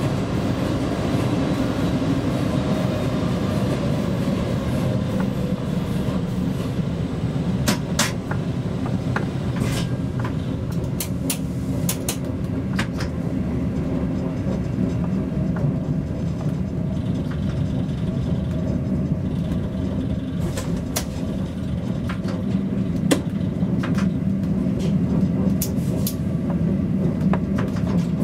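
ČD class 340 electric locomotive running at speed, heard from inside its cab: a steady low rumble and hum of the running gear and traction equipment. Sharp clicks from the wheels on the track come every now and then, some in quick clusters.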